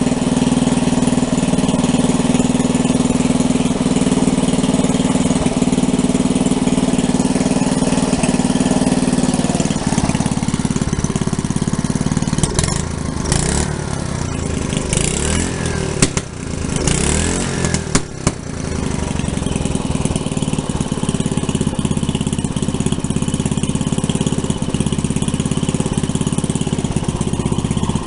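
Small single-cylinder Briggs & Stratton 5 hp flathead engine running steadily. For several seconds in the middle its note drops and turns uneven, with a couple of sharp knocks, and then it settles back to a steady run.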